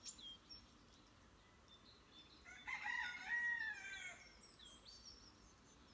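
A rooster crowing once, about two and a half seconds in, for roughly a second and a half. Small birds chirp around it.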